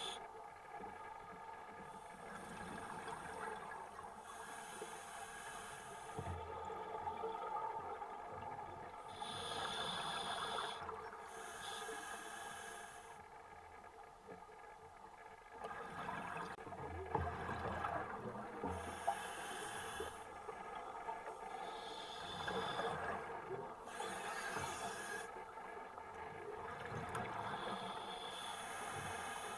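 Scuba divers breathing through regulators, heard underwater: bursts of bubbling exhalation every few seconds, with quiet gaps between, over a steady low drone.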